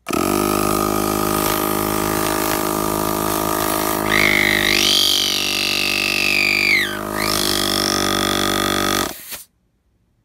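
Slime Elite heavy-duty tire inflator's compressor switching on and running with a steady drone. From about four seconds in to about seven, a high whine rises and bends over the drone. Near the end it cuts off suddenly as the auto shut-off reaches the target pressure.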